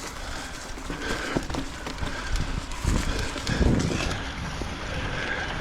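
Mountain bike riding over roots on dirt singletrack: tyre noise with irregular knocks and rattles from the bike, and a heavier thud about three and a half seconds in.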